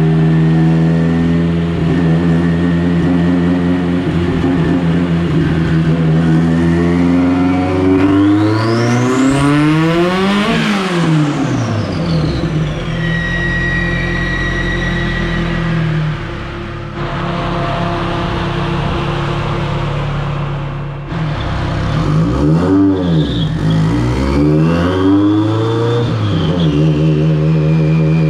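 Subaru EJ25 flat-four engine of a VW Beetle running, revved up to a peak about ten seconds in and back down, then revved briefly twice more near the end, with a thin high whistle rising and falling alongside the revs.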